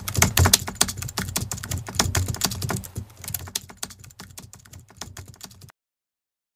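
Computer keyboard typing sound effect: a fast, dense run of keystroke clicks that grows fainter after about three seconds and cuts off abruptly near the end.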